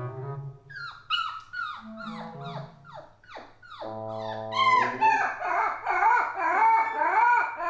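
Comic background music: held low tones, then a run of quick falling whistle-like glides, then a wavering, wailing melody line.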